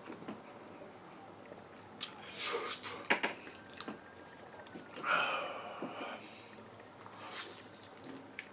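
Close-up eating sounds of a man eating chicken wings: chewing and biting with a few soft clicks, and a louder hissy stretch lasting about a second around five seconds in.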